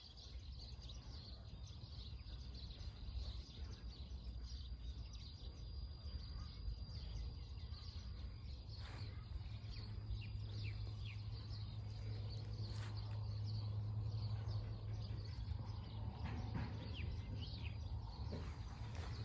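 Countryside ambience of birds chirping now and then, mostly in the second half, over a steady low rumble. A thin, steady, high insect drone runs for the first several seconds.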